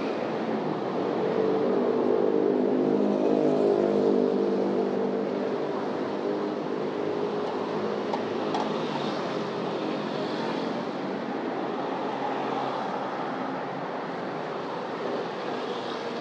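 Street traffic, with a motor vehicle's engine passing close by. The engine is loudest two to four seconds in and fades out within a few seconds, leaving a steady wash of traffic noise.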